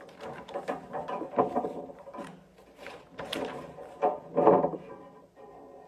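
A series of irregular knocks and clatter, sharp and sudden, several of them as loud as the nearby speech.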